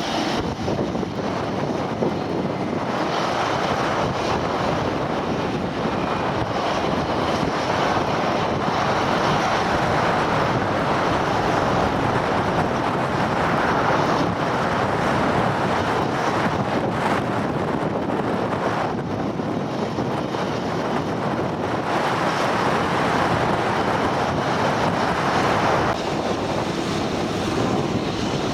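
Wind buffeting the microphone: a steady rushing noise that swells and eases every few seconds.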